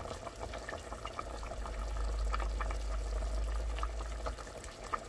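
Pot of beef seaweed soup (miyeokguk) at a full boil, bubbling with many small irregular pops. A low rumble runs under it from about a second in until near the end.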